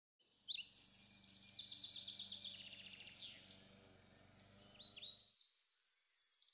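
Faint birdsong: a rapid trill of repeated high, downward-sweeping chirps for the first three seconds, then a few shorter calls near the end, over a faint low hum.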